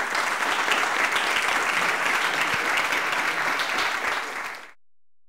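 Audience applauding, dense and steady, then cut off abruptly near the end.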